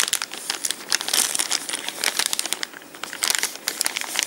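Clear plastic bag crinkling as it is handled and turned over in the hands: a rapid, irregular crackle.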